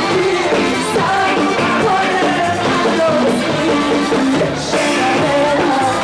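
Live rock band: a woman singing a melody into a microphone, backed by electric guitar and drums.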